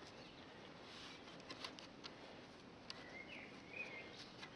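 Near silence, with a few faint ticks of a cord being knotted around a bundle of sticks and a faint bird chirp about three seconds in.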